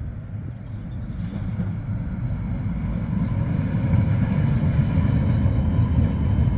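CAF Urbos tram approaching along the track, its low running rumble growing steadily louder as it nears, with a thin steady high whine above it.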